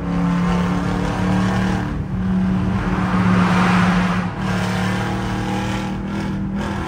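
Jeep Grand Cherokee's 5.7 Hemi V8 with its catalytic converters deleted, accelerating at highway speed, heard from inside the cabin. The exhaust has a loud, steady drone and swells in the middle.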